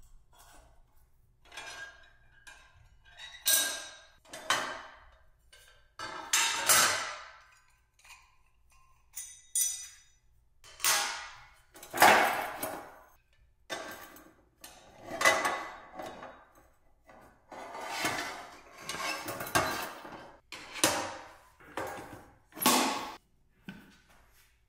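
Thin sheet-metal stove parts being folded and slid down into a steel ammo can: a string of separate metal scrapes and clanks, about a dozen, each under a second.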